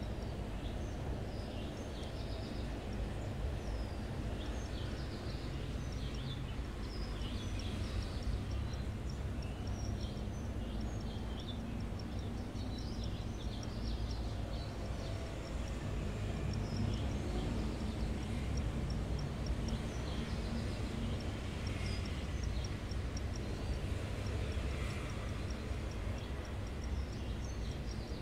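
Steady low hum and rumble of background equipment, with small birds chirping on and off and a faint, fast, regular high ticking through most of it.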